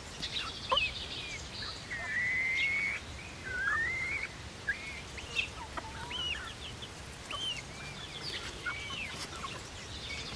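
Young Silkie chickens peeping, with many short chirps that rise and fall and one longer call held for about a second, about two seconds in.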